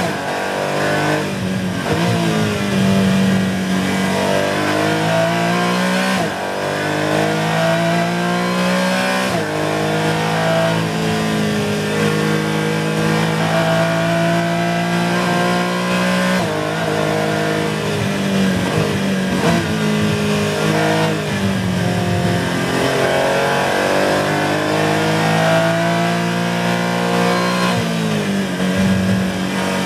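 Porsche 718 Cayman GT4 race car's flat-six engine at high revs, heard from inside the cockpit. Its pitch climbs steadily through each gear and drops abruptly at several gear changes.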